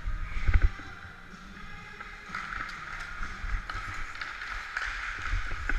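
Ice hockey skates scraping and gliding on rink ice, with a few sharp clicks of sticks on ice or puck, heard from a camera worn by a skating player. A low rumble runs under it, with a heavy bump about half a second in.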